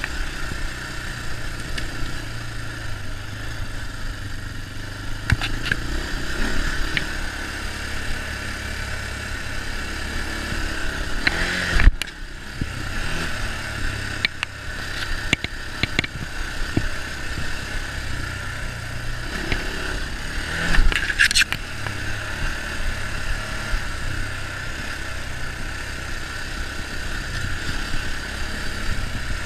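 ATV (four-wheeler) engine running as the machine is ridden along a bumpy dirt trail. Scattered knocks and rattles come from the quad going over bumps, the loudest about twelve and twenty-one seconds in.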